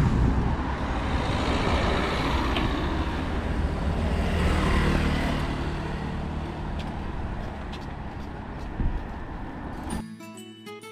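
Street traffic on a city road: vehicles going by, among them a motor scooter, the rushing noise swelling about halfway through and then fading. Music cuts in near the end.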